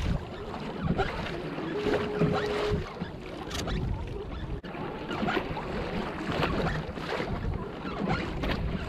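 Water splashing and slapping against the hull of a Hobie kayak moving through choppy sea, with wind on the microphone. A short steady tone sounds for about a second, about two seconds in.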